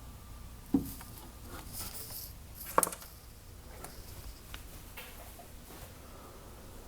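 Two sharp knocks about two seconds apart, with faint scattered clicks and light rustling around them.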